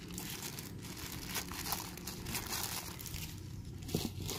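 Thin clear plastic packing bag crinkling softly as it is handled and pulled off a small phone.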